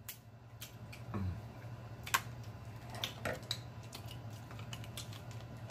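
Scattered sharp clicks and small cracks of seafood shell being handled and picked apart by hand, the loudest about two seconds in and several close together around three seconds, over a faint steady low hum.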